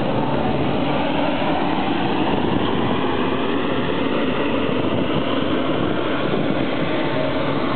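Jet airliner's turbine running at close range near the tail: a loud, steady rush with a faint steady whine, unchanging throughout.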